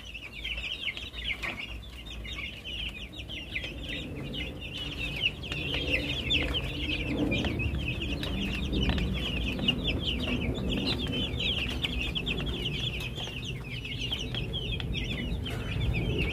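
A flock of young broiler chicks peeping without a break, many short high chirps overlapping, over a low steady hum.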